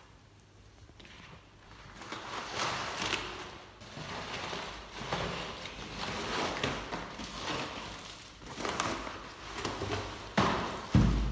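Brown paper and corrugated cardboard being torn and crumpled off a plastic dustbin, in irregular rustling bursts, with the plastic bag around the bin crinkling as it is handled. A single loud thump comes just before the end.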